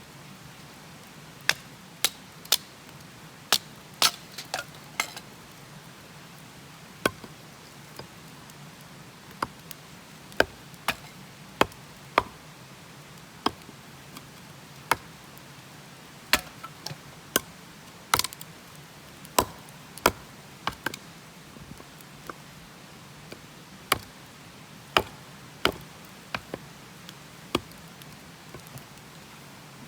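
Wood fire crackling: sharp, irregular pops and snaps from burning firewood, some coming in quick clusters of two or three.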